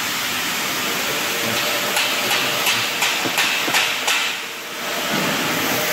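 Avocado pitting machine running with a steady hiss. From about two seconds in comes a run of sharp knocks, roughly three a second, which dies down briefly near the end.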